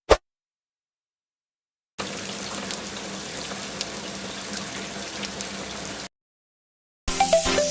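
A sharp click, then about four seconds of steady running water that stops abruptly.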